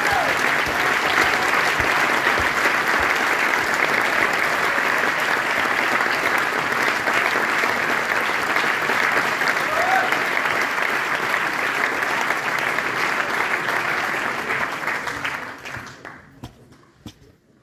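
Audience applauding steadily, the clapping dying away about sixteen seconds in.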